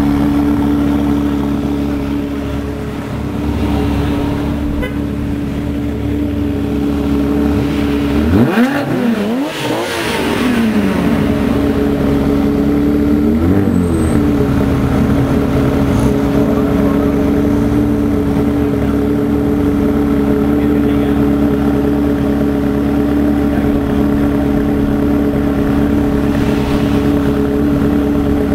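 Ferrari 360's V8 idling with a steady tone, revved once about eight seconds in, its pitch rising and falling back over about two seconds, then blipped briefly a few seconds later.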